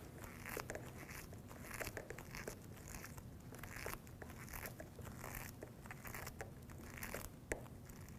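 A screw being driven by hand with a screwdriver through a metal angle bracket into a window frame: faint, irregular creaks, scrapes and small clicks that come in bunches with each turn of the hand.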